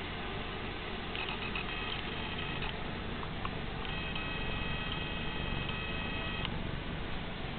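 Domestic cat purring close to the microphone: a steady, fast-pulsing low rumble. A high steady whine comes and goes twice over it.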